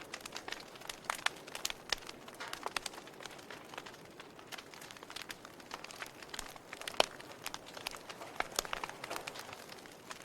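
Wood fire burning in a fireplace, crackling with irregular sharp pops over a soft hiss. The loudest pop comes about seven seconds in.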